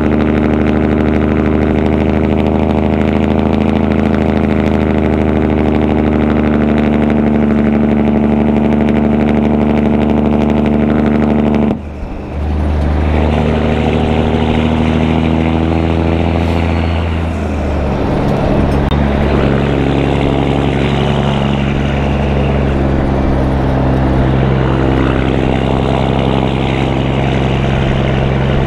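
Caterpillar 3406E inline-six diesel in a heavily loaded Peterbilt truck running under way through 6-inch stacks and an Aero Turbine 5050XL muffler. About twelve seconds in the sound drops out briefly and comes back at a different pitch, and the pitch changes again around eighteen seconds.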